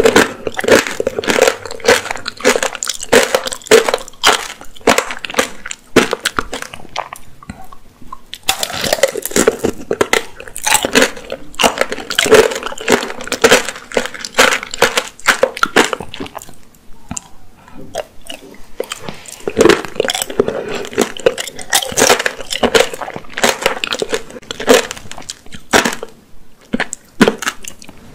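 Close-miked crunching and chewing of apricot tanghulu: the hard sugar-candy shell cracks and shatters between the teeth. It comes in three long spells of dense crunching, with short quieter lulls between them.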